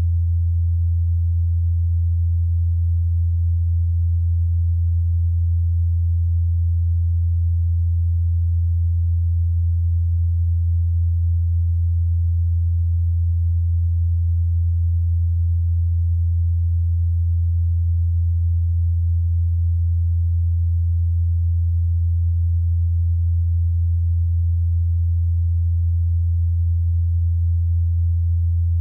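A steady, deep electrical hum: one low tone that does not change.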